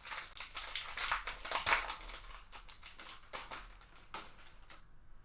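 Crinkling and crackling of a foil trading-card pack wrapper being handled and torn open, loudest in the first couple of seconds and dying away about four to five seconds in.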